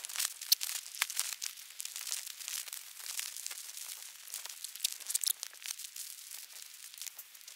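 Backpack and dry bags rustling and crinkling in quick, irregular crackles as gear is stuffed and packed away.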